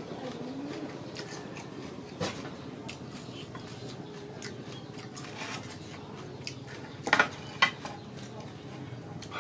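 Metal fork clicking and scraping against a foam food box and a small sauce bowl while eating, a few sharp clinks among softer scrapes, the loudest a cluster about seven seconds in.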